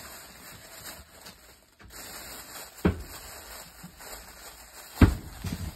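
Two dull thumps over faint room hiss: one about three seconds in and a louder one about two seconds later.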